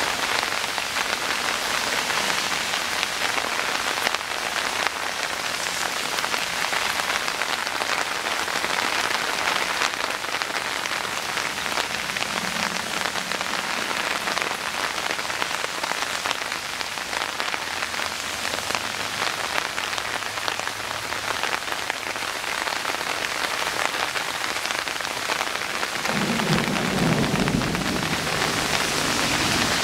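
Heavy rain falling steadily on the ground and on runoff water, an even hiss. A low rumble of thunder comes in near the end.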